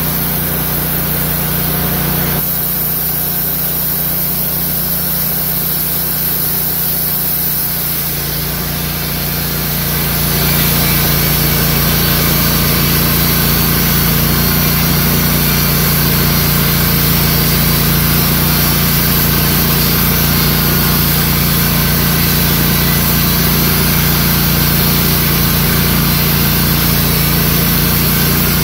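Wood-Mizer LT15 GO portable band sawmill running, its band blade cutting lengthwise through a large log. The sound gets louder and fuller about ten seconds in, then holds steady.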